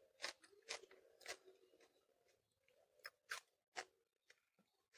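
A person chewing raw cucumber close to the microphone: short, crisp crunches, three in the first second and a half and three more around three to four seconds in.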